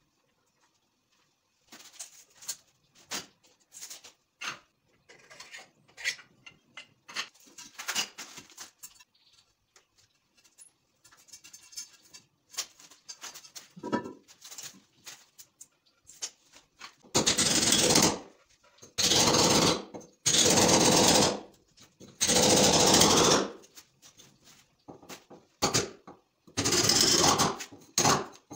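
Scattered knocks and clatter of tools being handled, then, from a little past halfway, loud runs of rapid hammer blows on a steel chisel against a tiled wall. Each run lasts about a second, with short pauses between.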